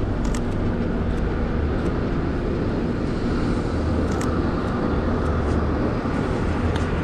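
Steady rumble of city street traffic, buses and cars running past, with a few faint clicks over it.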